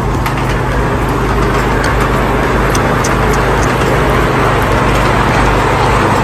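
Miniature ride-on garden train running along its track with passengers aboard: a steady mechanical hum and rumble, with a few faint light ticks.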